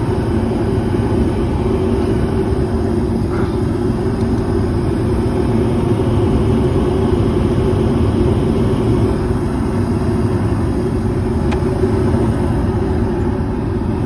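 Gas furnace running: a steady low rumble of the burners firing and the fans turning. The burners are firing on gas pressure set too high, 4.3 inches of water column against the valve's 3.5 maximum.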